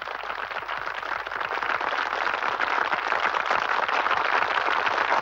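Studio audience applauding, swelling over the first couple of seconds and then holding steady.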